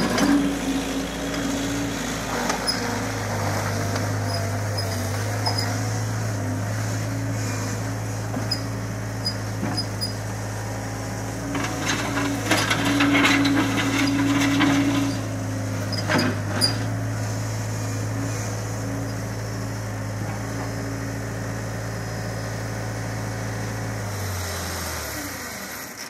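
Scat Trak 1300 HD skid steer loader's engine running steadily as the machine drives and works its bucket, with a louder stretch and a few clanks about halfway through. Near the end the engine note drops in pitch.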